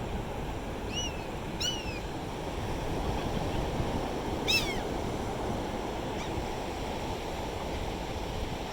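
Ocean surf washing steadily onto the beach. A bird gives a few short calls over it, each rising then falling, about a second in, again just after, and once more halfway through.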